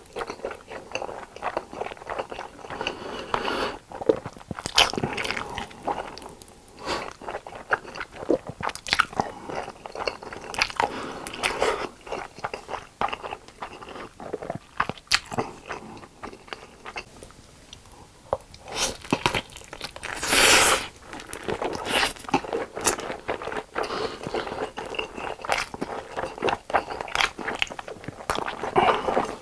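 Close-miked eating: a steady run of bites and chewing, with many small crisp clicks, and one louder, longer noisy burst about twenty seconds in.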